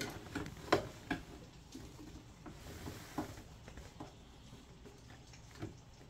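Scattered light clicks and knocks of hands working a component out of a gas boiler, with the sharpest click about a second in.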